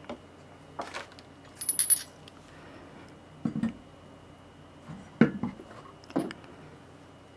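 Chrome deep sockets of an Astro Products 3/8-inch-drive hex socket set clinking and knocking against each other and their holder rail as the set is lifted from its clear plastic case and stood upright by hand. A handful of separate short clinks and taps, the sharpest about five seconds in.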